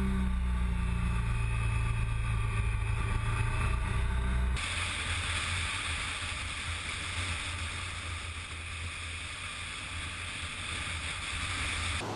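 Motorcycle on the road: the engine runs steadily with a low hum. About four and a half seconds in, the sound cuts abruptly to a steady hiss of wind and road noise with the engine hum underneath.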